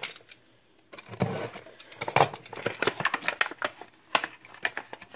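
A small cardboard product box being handled and opened: after a quiet first second, a dense, irregular run of clicks, taps and rustles of the packaging.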